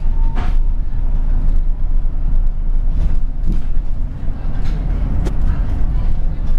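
Cabin noise of a New Routemaster diesel-electric hybrid double-decker bus on the move: a steady low rumble from the drivetrain and road, with a few short knocks and rattles from the body.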